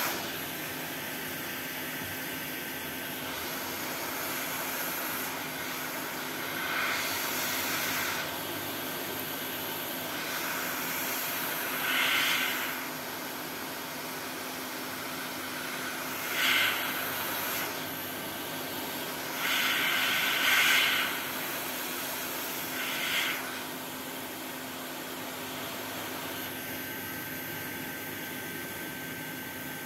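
Hot-air rework station blowing a steady rush of air with a faint fan hum. The hiss swells louder briefly about five times.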